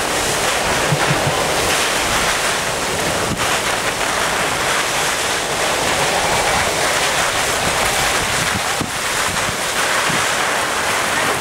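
Torrential rain and storm-force wind gusts of about Beaufort 10, a loud, steady rushing noise, with the wind buffeting the microphone in irregular low rumbles.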